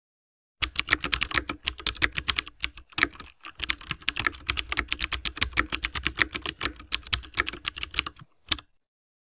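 Rapid run of typing clicks, several a second, starting about half a second in, with a short break around three seconds and stopping shortly before the end.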